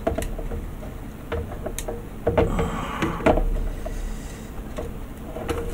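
Handling noise from wires being pushed and pulled through a plastic model kit's hull: irregular small clicks, taps and rustles, busiest a little past halfway.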